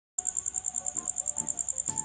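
Cricket chirping in a steady, rapid high-pitched trill of about twelve pulses a second, starting just after a brief silent gap, with faint background music underneath.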